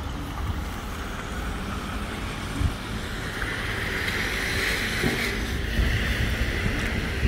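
Street traffic on a wet road: a car's tyres hiss on the wet asphalt, swelling about halfway through and then fading as it passes, over gusts of wind on the microphone.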